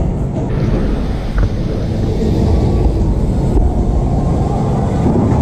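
Steady low rumble of wind buffeting and tyre roar on a moving camera's microphone as it rides behind a BMX bike across concrete, with one light knock about a second and a half in.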